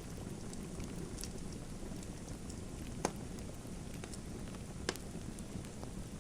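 Wood fire burning in a fireplace: a steady low rush with scattered crackles and two sharper pops, about three and five seconds in.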